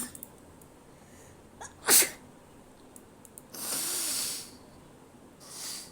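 A woman sneezing: a sharp sneeze at the start and a louder one about two seconds in. Then comes a hissing breath of about a second, and a shorter one near the end.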